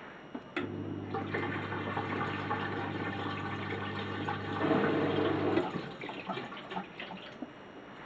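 Bosch dishwasher's drain pump starting with a steady hum and pumping water out with a rushing, gurgling sound. It gets louder near the end as the last water is drawn through, then stops about five and a half seconds in, followed by a few small ticks.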